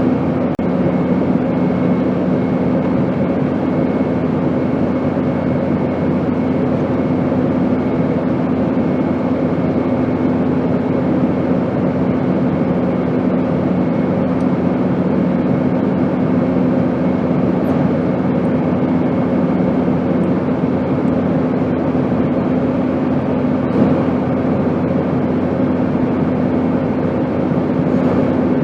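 Airplane noise: a steady rushing drone with a constant low hum and a faint high whine, unchanging throughout.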